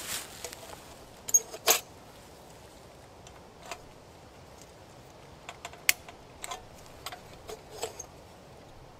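Sharp metal clicks and clinks as a hurricane lantern is handled, its globe raised and lowered on the wire frame, and a lighter is used to light the wick. The loudest is a close pair of clicks about one and a half seconds in, followed by scattered lighter clicks.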